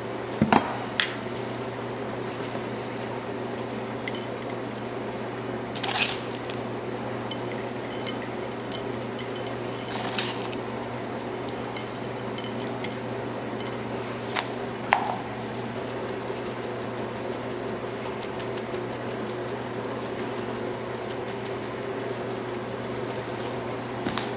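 Steady low hum of the room, with a few sharp clinks on a ceramic plate and, from about seven to thirteen seconds in, a fine patter of crumb topping scattered onto the plate.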